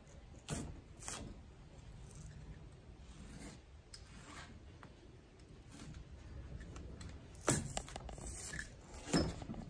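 Old foam grip on a John Deere Z665 zero-turn steering lever being slit with a razor blade and torn and peeled off the metal tube: short sharp scrapes and rips about half a second and a second in, quieter scratching and rubbing after that, and louder tearing near the end.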